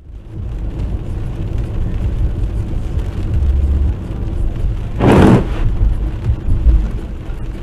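Steady low rumble of a car on the road, picked up by a dash camera, with a brief loud burst of noise about five seconds in.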